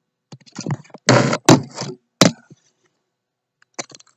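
Handling of hard objects: a rustling clatter about a second in, with two sharp knocks.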